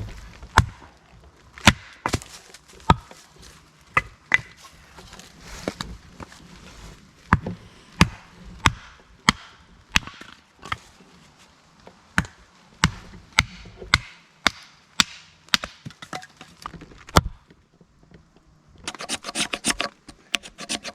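Repeated sharp knocks of wood being chopped, one every half second to second. About nineteen seconds in they give way to fast, continuous scraping of a knife blade shaving a fatwood stick into tinder.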